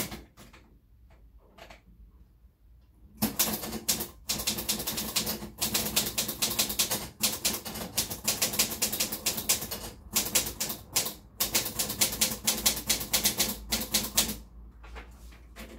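Manual typewriter being typed on: a few scattered key clicks at first, then fast runs of keystrokes from about three seconds in, broken by brief pauses, thinning to a few clicks near the end.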